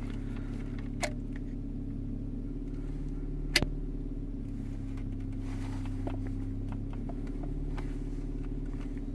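Car engine idling steadily, heard from inside the cabin. Two sharp clicks cut through it, the louder one about three and a half seconds in.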